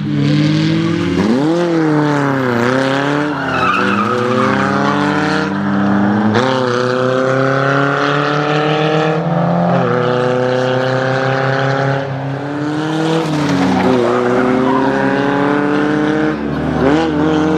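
Historic rally car engines accelerating hard through the gears: the engine pitch climbs steadily, drops at each gear change and climbs again, several times over.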